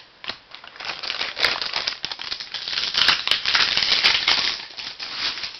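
Baseball trading cards being handled and flipped through by hand: a dense run of papery rustling and sharp card flicks, loudest in the middle and fading near the end.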